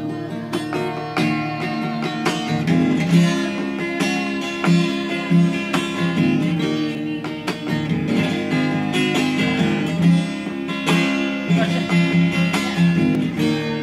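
Acoustic guitar played alone in steady, rhythmic chord strokes: an instrumental passage with no singing.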